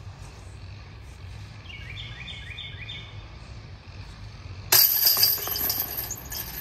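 A golf disc striking the chains of a disc golf basket: a sudden loud metallic jangle near the end that rings down over about a second and a half.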